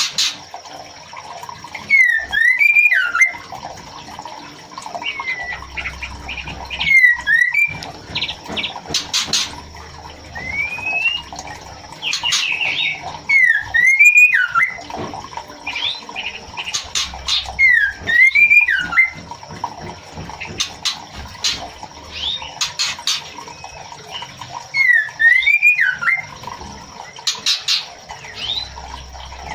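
White-rumped shama calling: a short swooping whistled phrase repeated every few seconds, with sharp clicking notes in between. By the title, this is the female calling the male, a sign that she is in breeding condition.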